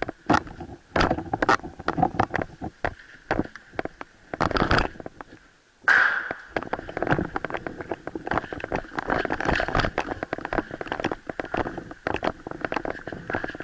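Footsteps and kit of a person moving on foot over gravel and concrete: a run of irregular clicks, scuffs and knocks, with a few louder knocks. From about six seconds in, a steady high tone runs underneath.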